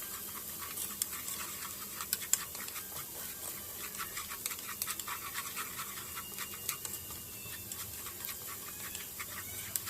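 Shallots and garlic sizzling in hot oil in a pan: a steady hiss with frequent crackling pops as they fry toward lightly browned.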